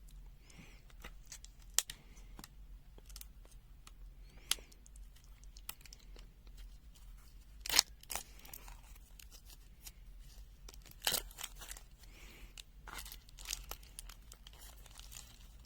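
Scattered light plastic clicks and crinkling as a handheld digital multimeter is handled and opened up, with louder snaps about eight and eleven seconds in.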